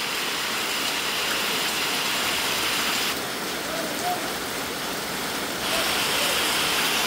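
Heavy rain pouring steadily onto a flooded yard and puddled concrete, a dense hiss of falling water that eases for a couple of seconds in the middle before picking up again.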